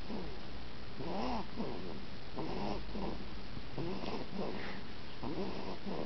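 Young child snoring in his sleep: a rasping snore on each breath, repeating about every second and a half.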